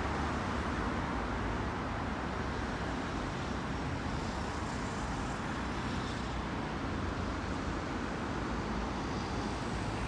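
Steady road traffic noise: an even rumble and hiss of passing vehicles without breaks.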